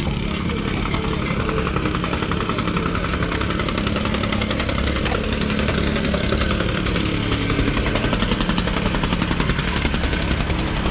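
Diesel engines of a roadworks excavator and tipper truck running steadily at close range, with some clattering from the works.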